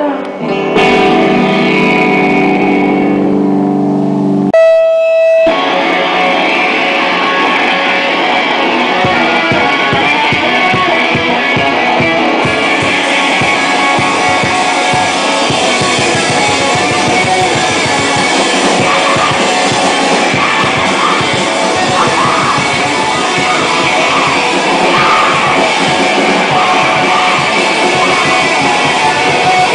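Screamo band playing live and loud through the amplifiers: a held electric guitar chord rings for a few seconds, a single held note sounds briefly, then the full band crashes in with distorted guitar, bass and drums.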